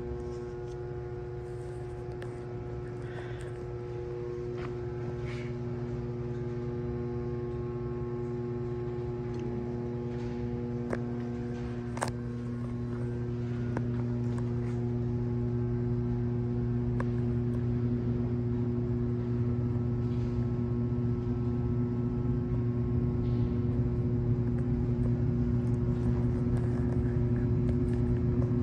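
Steady mechanical hum of an underground metro platform, with several steady tones in it, slowly growing louder; a couple of sharp clicks near the middle.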